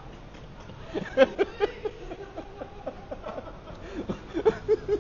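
A person laughing in two bouts of short, quickly repeated bursts, one about a second in and another near the end.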